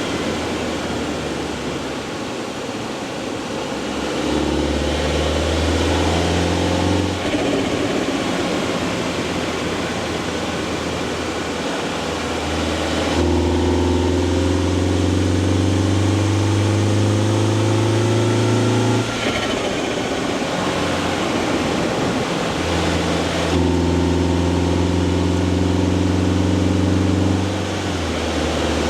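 Mini Clubman S's B48 2.0-litre turbocharged four-cylinder engine pulling under load three times, the note rising slowly in pitch during each pull and dropping off abruptly at the end, with steady running in between.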